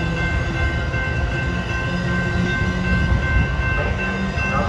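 Metra bilevel gallery passenger coaches rolling past, a steady low rumble of wheels on rail with thin steady high-pitched tones over it.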